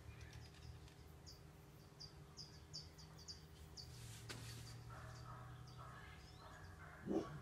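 Faint outdoor background: a bird chirping, about a dozen short high chirps in quick succession over the first five seconds, above a steady low hum. Near the end comes one short, louder sound.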